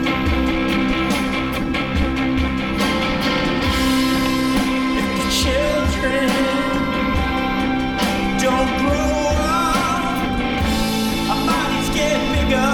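A song with a singing voice and guitar over a steady drum beat, laid over the ride.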